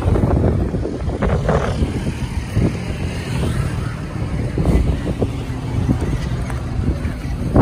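Road traffic on a bridge, a steady low rumble, with wind buffeting the microphone.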